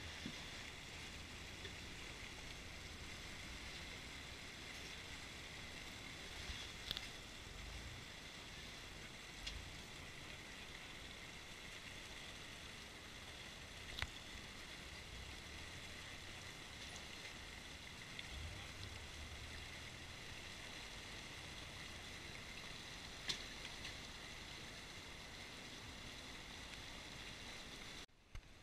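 Muffled, steady rush of a rocky mountain creek, dulled by a GoPro waterproof housing, under a low truck-engine rumble that comes and goes as a Toyota pickup rock crawler picks its way over the boulders. A few sharp knocks stand out, about a quarter and half way through and again near the end.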